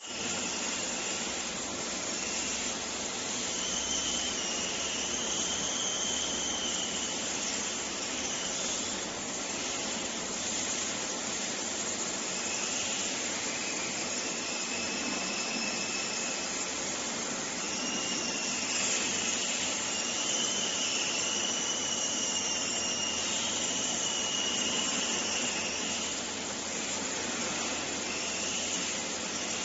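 Long-nosed butane lighter burning: a steady gas hiss with faint wavering whistles riding on it.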